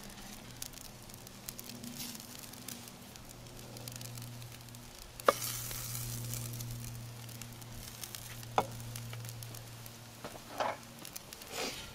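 Food sizzling on a hot charcoal grill, a steady hiss with a low hum beneath it. Two sharp clicks come about five and eight and a half seconds in.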